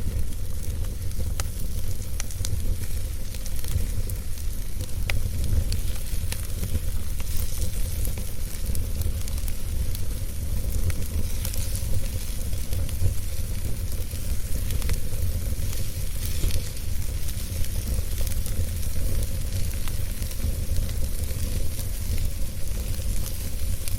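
Wood fire burning in a fireplace: a steady low rumble and soft hiss with scattered sharp crackles and pops.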